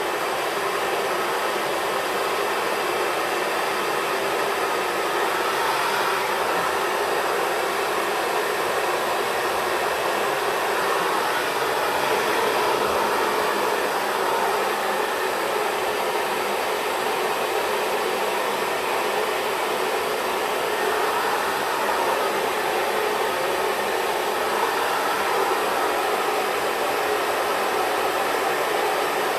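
Xtava Pro hair dryer running steadily, blowing air while drying curly hair.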